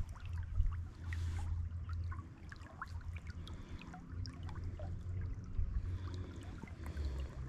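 Shallow river running over a gravel riffle, with many small close trickles and bubbles over an uneven low rumble.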